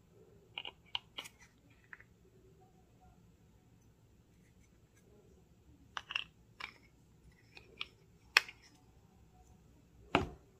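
Light plastic clicks and taps from handling a toothpaste tube and its screw cap as the cap is pressed onto the tube's mouth, with one sharper click a little past two-thirds of the way through. A soft thud near the end as the tube is set down on the table.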